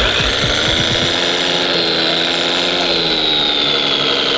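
Radio-controlled model MAN truck pulling a tipper trailer over gravel: a steady mechanical whine from its electric motor and drivetrain, with a high whine that falls slowly in pitch over the last couple of seconds, and a few low knocks in the first second.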